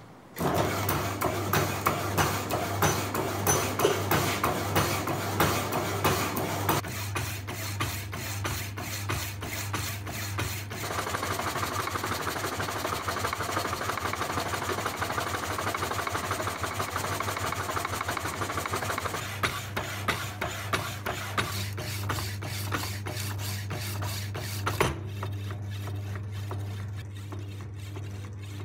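Power hacksaw cutting through 50 mm 4140 steel round bar: a steady motor hum under the rasping, scraping strokes of the blade.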